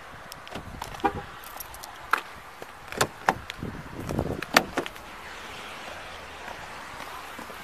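Handling noise around a car: a run of sharp knocks and clicks with rustling, the loudest knock about four and a half seconds in, then only a steady low hiss.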